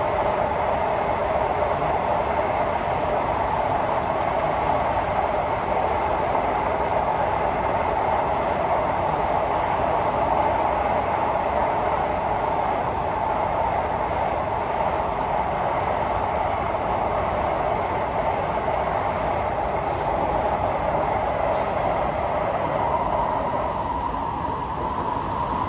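Steady running noise of an SMRT Kawasaki C151A electric metro train, heard from inside the car while it travels between stations: an even rumble of wheels on rail with a faint steady whine.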